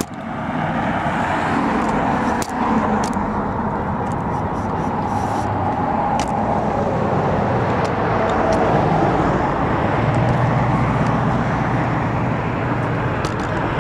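Road traffic passing on a highway bridge: a steady rush of car engine and tyre noise, swelling a little in the second half.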